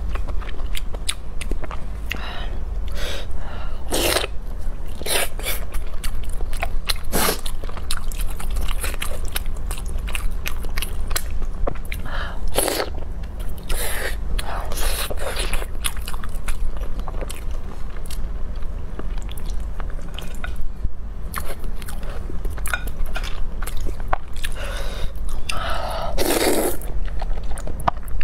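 Close-miked chewing and biting of food: wet mouth sounds and many short crunchy clicks, with a longer, louder mouth sound near the end, over a steady low hum.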